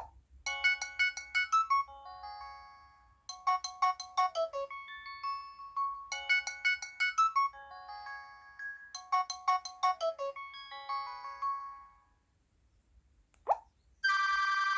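A Nokia 225 4G phone's ringtone: a short melody of quick high electronic notes, played four times in a row. Near the end there is a click, then a brief beep.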